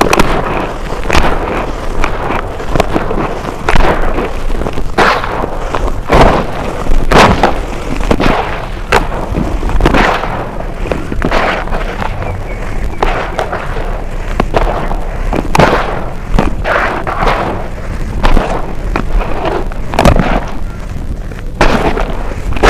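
Brown dirt crunching close to the microphone: dense, irregular crackles and sharp crunches, several a second, without pause.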